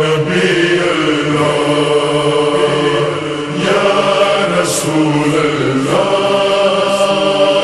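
Slowed, reverb-heavy noha: voices holding long, droning notes without words, shifting pitch a couple of times, in an echoing wash.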